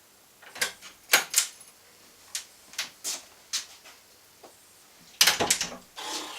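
A string of sharp clicks and knocks, then a louder clatter about five seconds in and a rattling scrape near the end, like small hard objects being handled.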